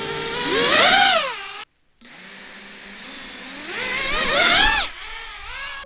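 FPV racing quadcopter's brushless motors and propellers whining, the pitch climbing steeply and falling again twice, with an abrupt break of silence between the two.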